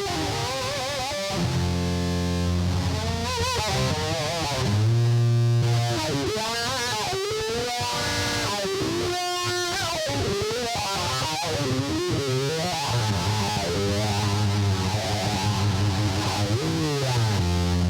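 Live instrumental music on an amplified string instrument run through distortion and effects: a wavering, sliding melody with vibrato over sustained low notes.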